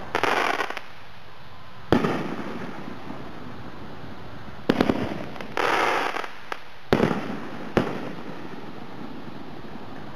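Magnus 'Own It' 500-gram firework cake firing: several sharp booms of shell breaks a second or two apart, with two stretches of dense crackling from its crackle mines, one right at the start and one a little past halfway.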